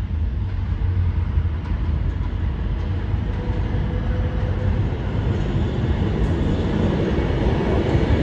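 R160A subway train approaching through the tunnel: a steady low running noise of wheels on rails that slowly grows louder, turning brighter near the end as it nears the platform.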